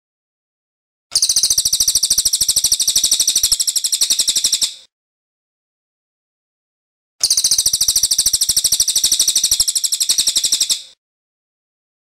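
Cililin (racket-tailed treepie) singing two long rolling trills, each a rapid run of repeated high notes lasting about four seconds, separated by a few seconds of silence.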